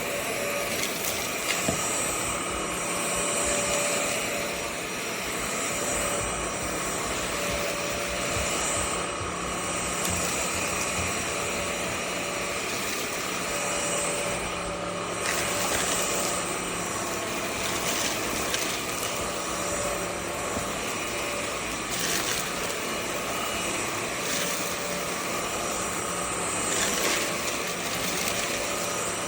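VersLife S7 Plus cordless stick vacuum running steadily: a rush of air under a steady motor whine, the upper hiss swelling and easing every few seconds.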